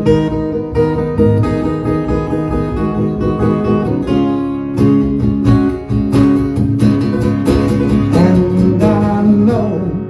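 Acoustic guitar strumming in a slow song, played as an instrumental passage between sung lines.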